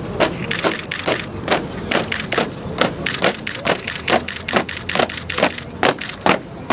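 A formation of soldiers marching in step at a parade pace, their boots striking the pavement together about twice a second.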